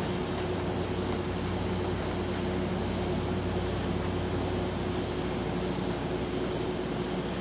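Steady low hum of railway station ambience at night, with a constant low drone that does not rise or fall.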